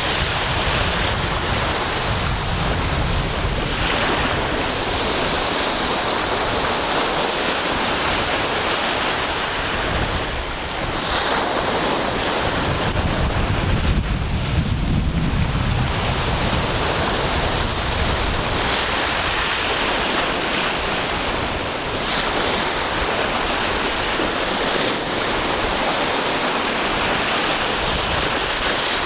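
Ocean waves breaking and washing ashore in continuous surf, with a low rumble that builds and eases every several seconds.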